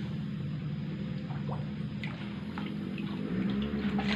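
Water dripping and lapping as large lele catfish swim at the surface of a shallow concrete tank, with scattered small splashes. A steady low hum runs underneath and grows louder about three seconds in.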